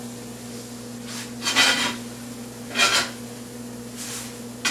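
Two short scrapes, about a second apart, as fried squash slices are lifted out of a cast iron pan onto a plate, over a steady low hum.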